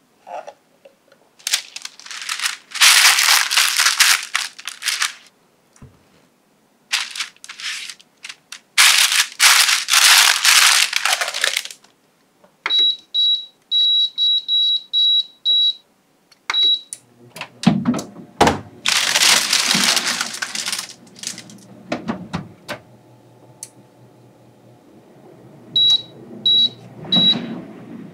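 Paper crinkling in two spells, then an air fryer oven's control panel giving a run of short high beeps as its dial is turned to set the time and temperature. About 17 seconds in, the oven's fan starts with a steady hum, and a few more beeps come near the end.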